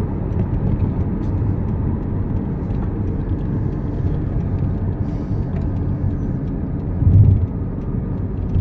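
Moving car heard from inside the cabin: a steady low rumble of road and engine noise, with one brief louder low thump about seven seconds in.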